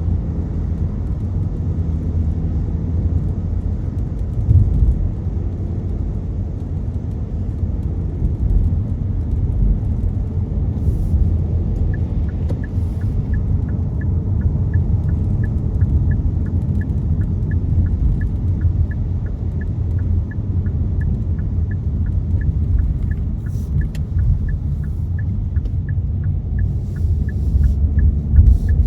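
Steady low road and engine rumble inside a moving car's cabin. A little before halfway through, a turn-signal indicator starts ticking evenly, about three ticks a second, and stops near the end.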